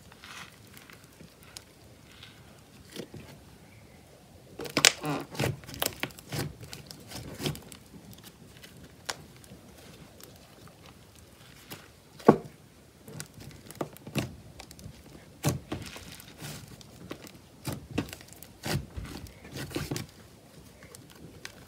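Stiff clay slime being stretched, folded and squeezed by hand, giving clusters of soft crackles and small pops. They start about five seconds in, with one sharper pop a little past the middle.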